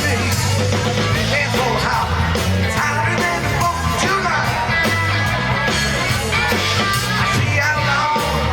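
Rock band playing with a singer, steady bass notes and drums underneath.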